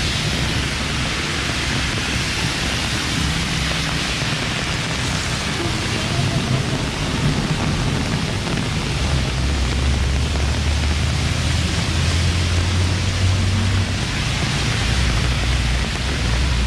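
Heavy rain falling as a steady hiss, with the low rumble of road traffic underneath that swells for a few seconds past the middle.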